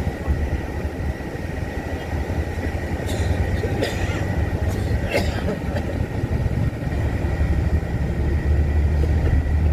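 Shuttle bus running, a steady low engine and road rumble with a thin steady high whine. A few short knocks or rattles come about three to five seconds in.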